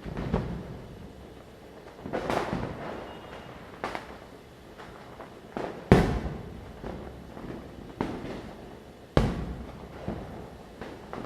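Diwali firecrackers going off at irregular intervals, about seven sharp bangs, each trailing off in echo; the loudest comes about six seconds in, with another hard bang about nine seconds in.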